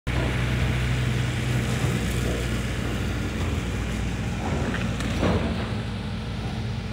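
Steady low rumble of a running engine or motor, with an even hum, and a faint click about five seconds in.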